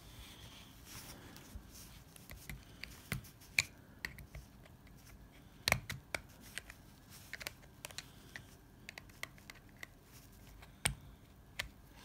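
Small sharp clicks and scrapes of plastic as a pry tool works around a plastic electric-shaver casing, levering at its snap-fit side clips. A few louder snaps stand out, about a third of the way in, about halfway, and near the end.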